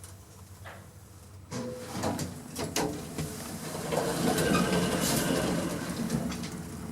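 Small passenger lift in operation: a few knocks, then a steady, louder running rumble and rattle of the car and its machinery from about four seconds in.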